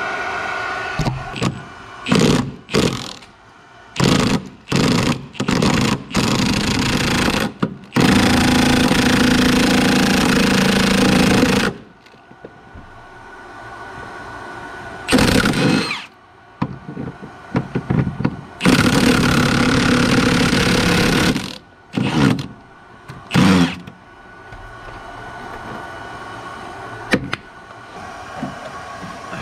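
Impact wrench hammering on a cab body mount bolt in bursts: a string of short bursts, then longer runs of about four and three seconds with short bursts between.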